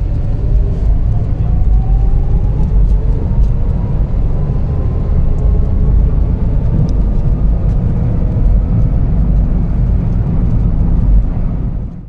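Car cabin noise while driving: a steady low road and engine rumble, with a faint whine slowly rising in pitch over the first several seconds.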